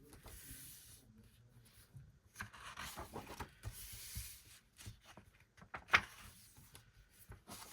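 Paper and plastic rustling and rubbing as an album's lyric book and CD are handled, with a sharp click about six seconds in.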